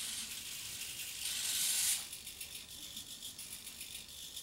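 The Rapiro robot's hobby servo motors whir as it raises and waves its arm on the 'wave right hand' command. A loud, buzzy, high-pitched whir fills the first two seconds, then drops to a quieter, rapid chattering.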